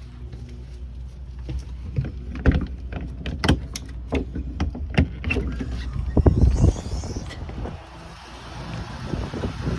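Footsteps, knocks and thuds of someone walking out of a motorhome and stepping outside, over the low hum of its idling engine. Near the end wind buffets the microphone outdoors.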